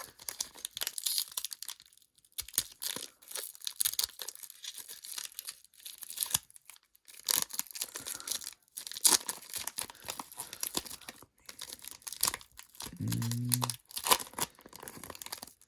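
Foil Pokémon booster pack wrappers crinkling and tearing while cards are handled, in irregular crackly bursts. A brief low vocal murmur comes near the end.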